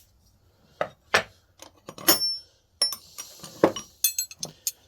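Steel hand wrenches clinking and knocking against each other as they are handled and set down: a series of short metallic clinks, a few with a brief ring.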